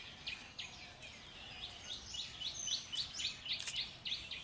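Birds chirping: a quick run of short, high repeated notes in the middle, over faint steady outdoor background noise.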